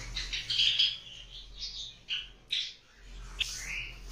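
White Java sparrows in a colony chirping, a run of short, high chirps from the flock.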